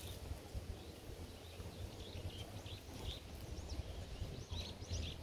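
Faint outdoor ambience: a steady low rumble with a scatter of short, high chirps, several in quick succession in the second half.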